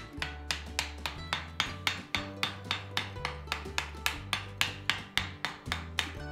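Hand hammer striking a red-hot hewing-axe blank on an anvil, ringing blows in a quick, even rhythm, over background music with a bass line.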